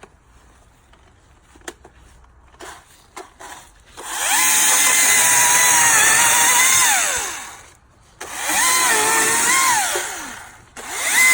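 Husqvarna battery-powered chainsaw running in three bursts: a steady electric whine and chain rattle that sags slightly in pitch under load and winds down each time the trigger is let go. It starts about four seconds in, after a few light clicks.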